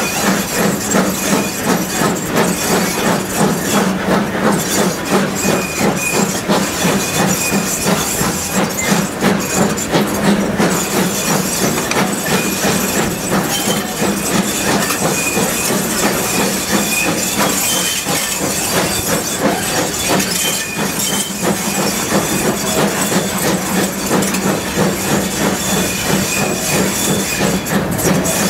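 Steam locomotive on the move, heard close up from the cab: a steady, even rhythm of exhaust beats with steam hissing and the sound of the train on the rails.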